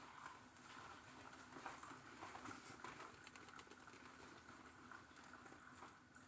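Coffee maker brewing: faint, irregular gurgling and crackling of hot water, with small pops and clicks over a low hiss.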